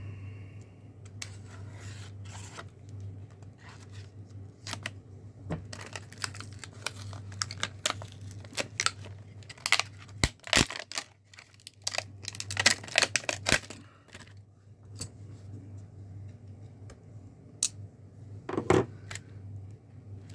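Packaging of a new pair of pliers being cut and torn open with a pocket knife: a run of irregular snaps, crackles and rustles, thickest in the middle stretch and again near the end, over a steady low hum.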